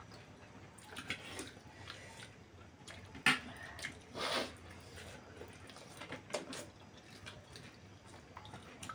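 Eating sounds: noodles being slurped and chewed, with a few light clicks of forks against plates.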